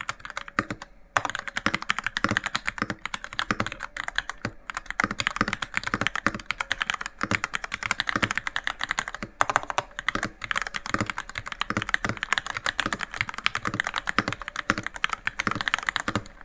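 Continuous typing on a VEA88 Koi V2 tenkeyless mechanical keyboard with MX Red linear switches: a dense, rapid run of keystroke clacks with a few brief pauses, stopping near the end.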